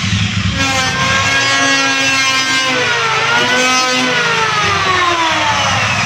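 Electric hand planer running loud, its motor whine falling and rising in pitch as it works.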